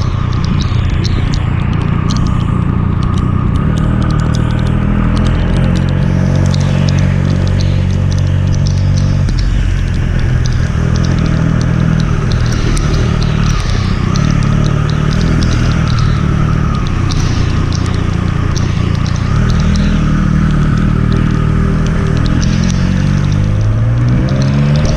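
Triumph Speed Triple 1200 RS's inline three-cylinder engine running at moderate, shifting revs in traffic, with a rise in revs as it accelerates near the end.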